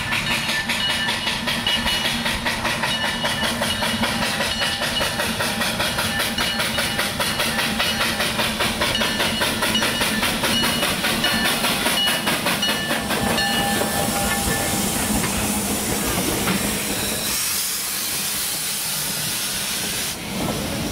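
Robert Dollar Co. No. 3 steam locomotive passing close by with a passenger train: fast, even exhaust chuffs over the hiss of steam. After about two-thirds the chuffing gives way to the steadier rolling and clatter of the coaches going by on the rails.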